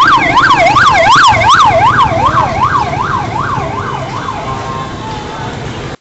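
A siren wailing rapidly up and down in pitch, about three sweeps a second, starting loud and fading away after about four seconds, over steady street traffic noise.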